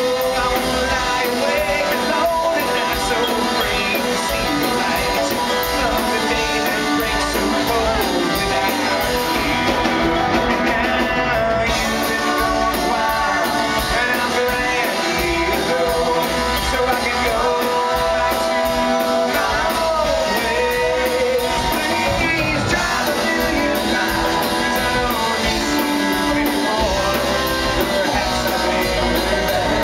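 Live bluegrass-style band playing with lead singing: acoustic guitar, fiddle and upright bass over a drum kit, with fast, even picking and drumming throughout.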